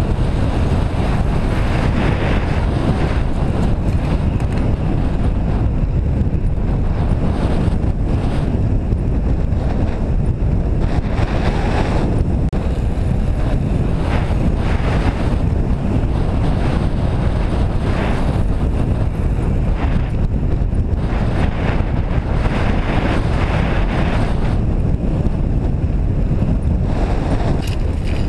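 Wind buffeting the microphone of a camera riding on a fast-moving recumbent bicycle: a steady, loud rumble, heaviest in the low end.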